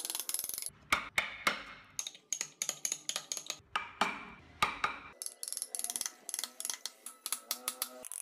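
A hand chisel cutting into wood: an irregular run of sharp clicks and snaps as chips split away, several a second, a few much louder than the rest.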